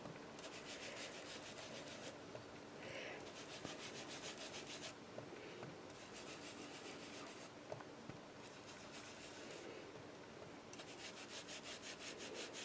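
Foam ink blending tool rubbed quickly over a stencil on cardstock, blending distress ink: faint, in three spells of fast strokes with quieter pauses between.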